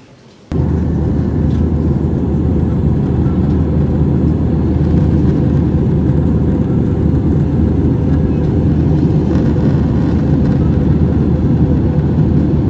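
Loud, steady low rumble of a vehicle in motion, cutting in abruptly about half a second in.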